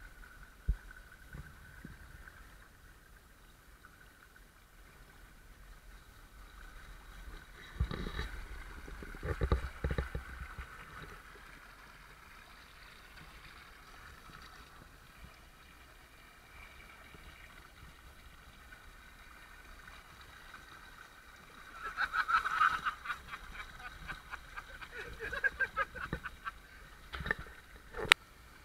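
Shallow creek water running and splashing around an RC crawler truck driving through it, with louder bursts of splashing at times and a few sharp knocks near the end.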